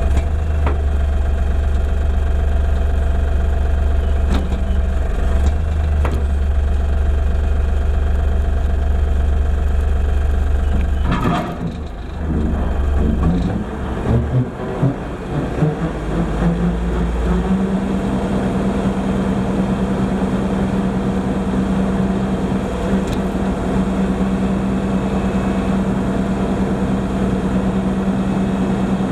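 LS MT240e compact tractor's diesel engine running steadily while brush hogging. About 11 seconds in the sound breaks up with some knocks and clatter, and from about 17 seconds it settles into a higher-pitched steady note.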